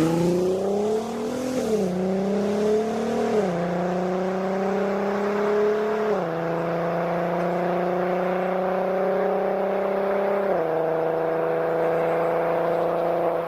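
Audi TT 3.2's VR6 engine and exhaust under hard acceleration, climbing in pitch and dropping at four quick upshifts, with each gear pulling longer than the last. The sound falls away abruptly at the very end as the throttle is lifted.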